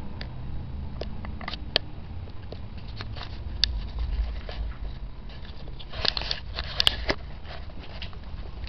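Handling noise from a hand-held camcorder's microphone: scattered clicks, taps and rustles over a steady low rumble, busiest about six to seven seconds in.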